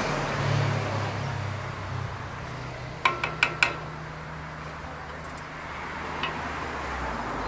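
A steady low hum with a light hiss, heaviest in the first second or two. About three seconds in comes a quick run of about four sharp, ringing metallic clinks of cookware being handled at the camp stove.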